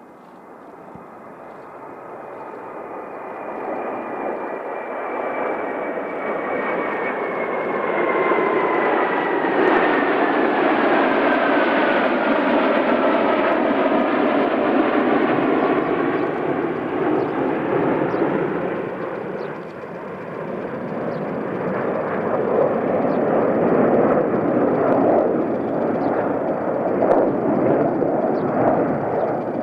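Formation of MiG-29 and Su-27 jet fighters flying past. The jet noise builds over the first several seconds, with a whining tone that falls steadily in pitch as they pass. It dips briefly about two-thirds in and then swells again.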